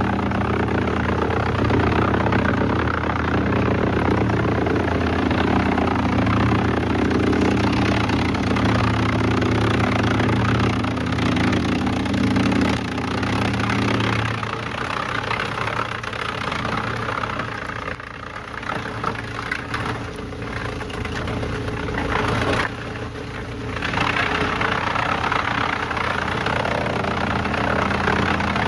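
Engine of heavy machinery running steadily. It drops lower and rougher about halfway through, then builds back to a steady run near the end.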